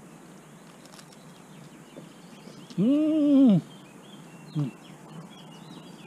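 A man humming "mmm" with his mouth full while eating a sandwich: one pitched hum that rises and falls, about three seconds in, and a brief second hum a second and a half later. Faint bird chirps sound behind it.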